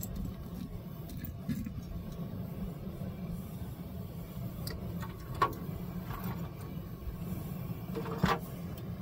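Steel wolf traps being boiled in a barrel of baking-soda water, over a steady low rumble. Sharp metal clinks come about five and a half seconds in, and louder near the end as the traps are lifted out of the barrel on a wire.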